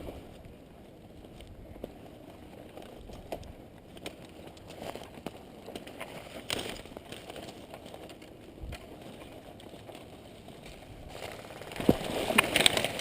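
Footsteps and the rustle of gear and brush, with scattered sharp clicks, becoming louder and busier about two seconds before the end.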